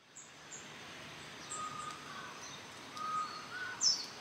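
Birds calling over a steady background rush: several short whistled notes and high chirps, the loudest chirp just before the end.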